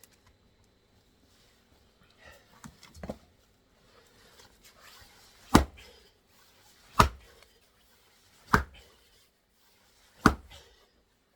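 Axe striking a knotted firewood log four times, about a second and a half apart, with a few lighter knocks before; the knot keeps the log from splitting.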